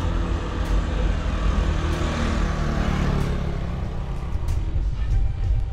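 Low, steady road and wind rumble on a cyclist's camera, with a motor vehicle passing close; its engine pitch drops between about two and three and a half seconds in.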